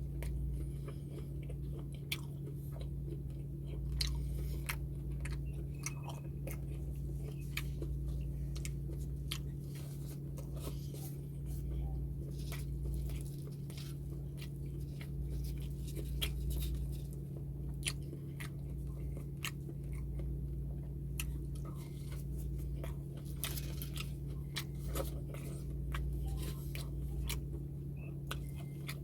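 A person chewing and biting crunchy food close to the microphone, with many short sharp crunches scattered irregularly throughout. A steady low electrical hum runs underneath.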